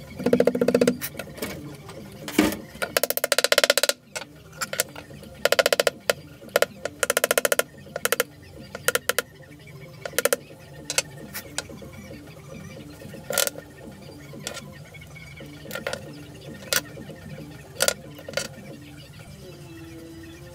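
Small hammer tapping the pins of a wooden knife handle seated on the tang: quick runs of rapid taps, then single sharp taps about a second apart.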